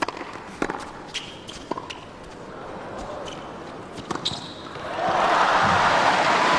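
Tennis rally on a hard court: sharp racket strikes on the ball, trading back and forth, roughly a dozen over the first four seconds or so. The point ends and loud crowd applause and cheering breaks out about five seconds in.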